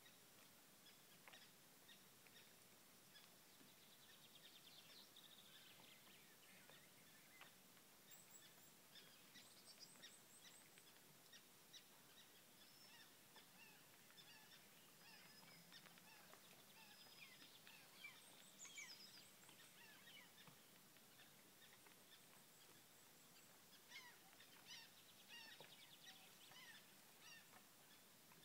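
Faint birdsong over a lake: scattered short, high chirps and calls from several birds, a little busier near the end, over a quiet background hiss.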